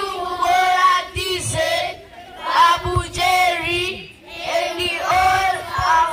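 A group of children singing together in unison, in sung phrases with short breaks about two seconds in and again about four seconds in.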